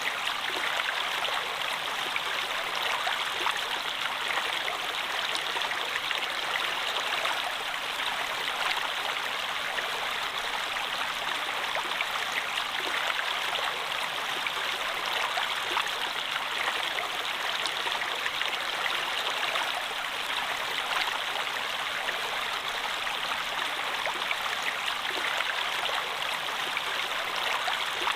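Running water flowing steadily, an even rush with fine splashing.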